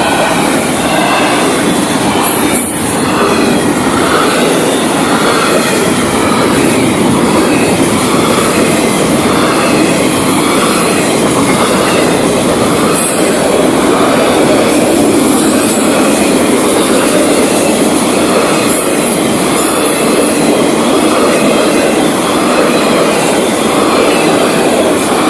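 Freight cars of a Florida East Coast Railway freight train rolling past at close range: steady wheel-on-rail noise with a rhythmic clickety-clack about once a second and a few sharper clicks from the wheels.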